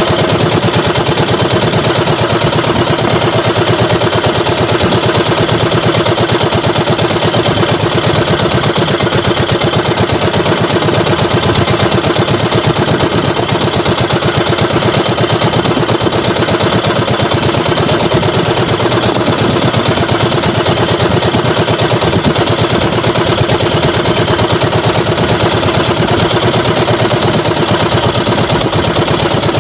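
Small boat engine running steadily at an even idle, with a fast regular pulse and no change in speed.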